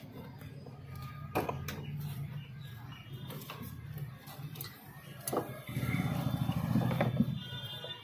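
Hands and tools working a TVS Jupiter scooter's TCI ignition unit loose from its mounting: several sharp clicks and knocks, with a louder rattling stretch near the end. A steady low hum runs underneath.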